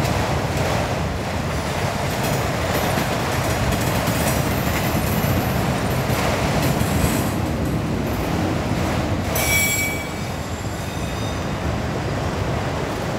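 Freight cars of a long Norfolk Southern manifest train rolling past on the rails, a steady rolling noise of wheels on track. About nine seconds in, a wheel squeals briefly in several high tones.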